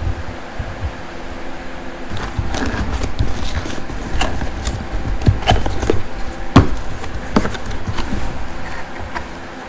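Cardboard and packaging rustling, with irregular clicks and knocks as a box of motorcycle cam-kit parts is opened and handled. The handling starts about two seconds in.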